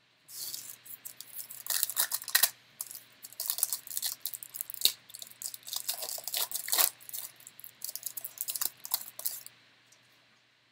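Foil wrapper of a Panini Revolution basketball trading-card pack torn open and crinkled by hand: an irregular run of sharp crackles and rips lasting about nine seconds, stopping shortly before the end.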